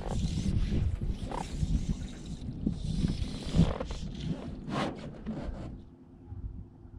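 Wind buffeting an open-air camera microphone, an irregular rumble with scattered knocks and hiss. About six seconds in it drops to a much quieter, faint steady hum.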